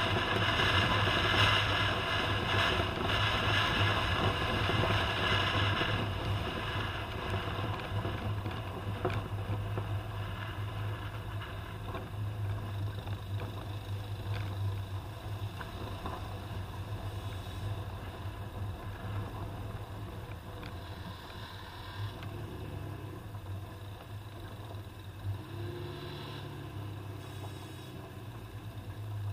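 Toyota Land Cruiser on the move: a steady low engine drone under rushing road and wind noise. The rushing is loudest for the first several seconds and then eases. Near the end the engine note rises and falls a few times.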